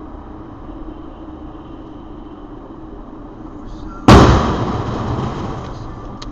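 Steady road noise heard from inside a car in a tunnel, then about four seconds in a sudden loud bang of a vehicle collision, a car striking a dump truck. The bang echoes and dies away over a second or so.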